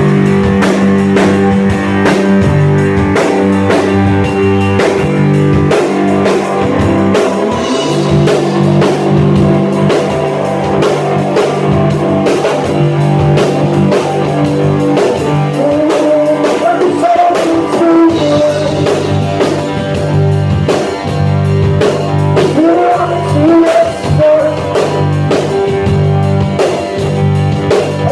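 Rock band playing live, loud: electric guitar over a drum kit.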